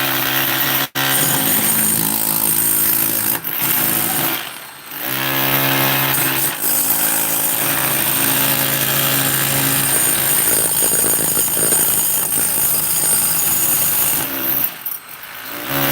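A jackhammer-type power hammer running steadily under load. It breaks off briefly about a second in, pauses for about half a second around four and a half seconds in, winds back up in pitch, and stops near the end.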